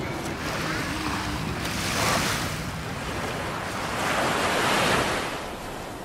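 Sea waves breaking and washing up a sandy beach, one surge about two seconds in and a second, longer one around four to five seconds in.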